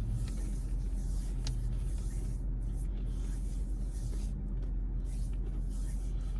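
Steady low hum with no clear events, a constant background rumble.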